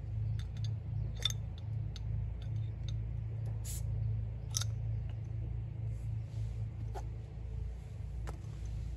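Sharp clicks and taps from handling an aluminium beer can, spaced irregularly, the two loudest about three and a half and four and a half seconds in, over a steady low hum.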